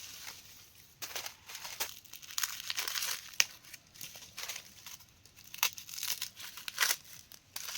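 Irregular rustling and crackling of leaves and plant stems, with a few sharp snaps.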